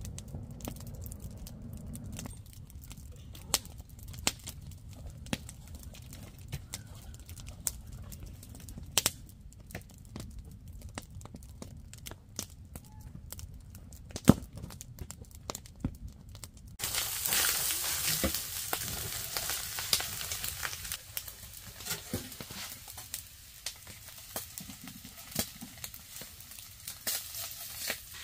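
Campfire crackling with scattered sharp pops over a low rumble, then, about two-thirds of the way through, a sudden hissing sizzle of food frying in a cast iron skillet on a wood stove, with small scrapes and clicks as it is stirred.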